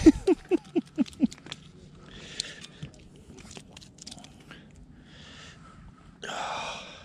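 Footsteps crunching on lake ice, a step about every second. It opens with a quick run of six or seven short vocal sounds, each falling in pitch.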